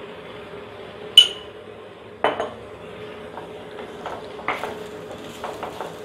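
A wooden spatula clinks, knocks and scrapes against an earthenware clay pot while okra is stirred, under a steady low hum. A sharp ringing clink comes about a second in and a duller knock a second later, then a run of light scrapes and taps.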